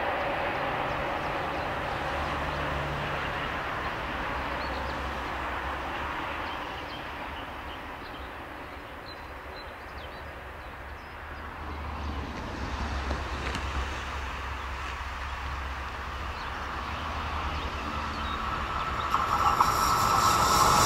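A rumble fades away, then a train on the main line approaches and gets louder from about halfway through, swelling sharply near the end with a high whine over the rolling noise as it nears.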